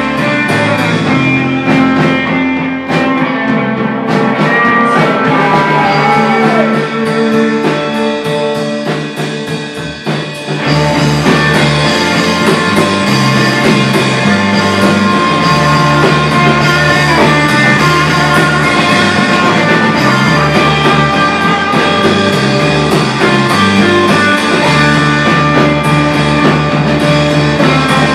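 Live rock band playing electric guitars, bass guitar and drum kit. A sparser guitar-led passage with little bass gives way about ten seconds in, when the full band comes back in louder.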